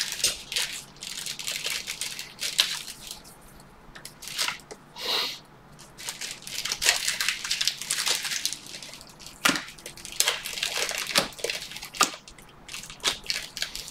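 Stacks of baseball cards being handled and thumbed through: a run of quick card-stock slides, flicks and rustles as cards are pushed past one another.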